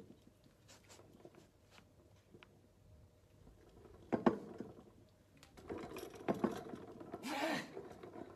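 Gym noises from a barbell box squat: a sharp knock about four seconds in, a run of clicks and rattles about two seconds later, and a short rushing noise near the end as the lifter rises off the box.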